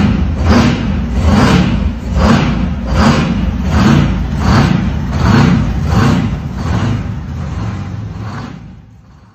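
Background music with a heavy, even beat about once every 0.85 seconds, fading out near the end.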